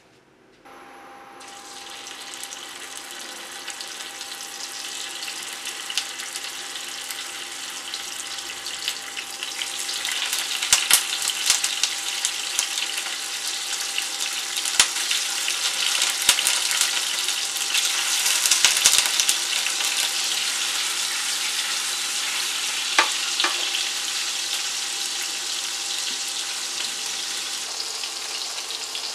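Tofu cubes frying in hot oil in a pan: a sizzle that starts abruptly and builds, with many sharp crackles and spatters in the middle before settling to a steady sizzle.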